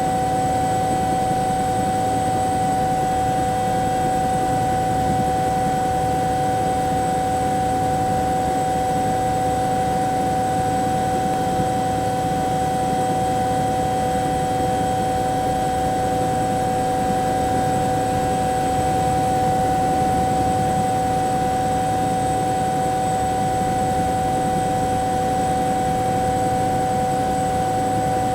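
Bell 212 helicopter's twin turbine engines and rotor heard from inside the cabin, running steadily: a constant turbine whine over a dense low rumble, with no change in pitch or level.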